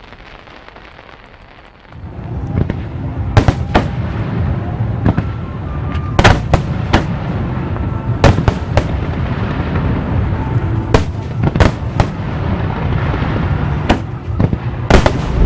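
Large aerial fireworks display at full barrage: a dense, continuous run of shell bursts with sharper cracks standing out every second or two. It starts suddenly about two seconds in, after a quiet lead-in.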